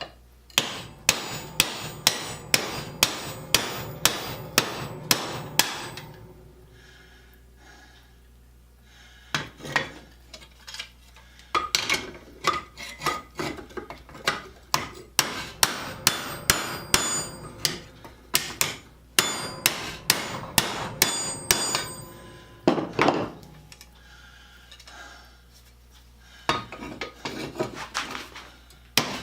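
Hammer peening homemade rivets to join a treadle grinder's treadle parts: runs of sharp metal-on-metal blows, about two or three a second, with two short pauses between runs.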